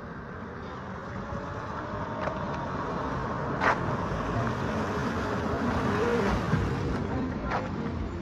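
Street traffic noise: a motor vehicle running close by, growing louder toward the middle and easing off near the end, with two sharp clicks along the way.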